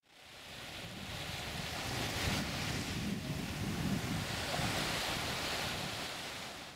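Sea surf washing steadily along the shore, with wind buffeting the microphone as a low rumble; it fades in from silence over the first second or two.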